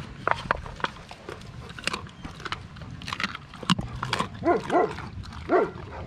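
A dog eating raw meat scraps from a steel bowl: irregular wet smacks, tearing and crunching clicks as it chews. Near the end come three short squeals or grunts that bend in pitch.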